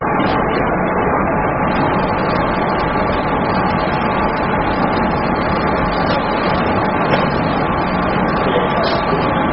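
Paper pulp moulding production line running: a loud, steady machine noise with a faint even hum through it.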